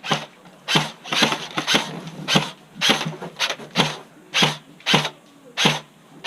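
Footsteps of a player advancing on foot, about two steps a second, slightly uneven.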